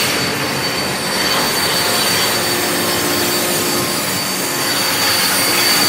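CNC plasma cutter cutting steel plate: a loud, steady hissing roar with a high, steady whine over it.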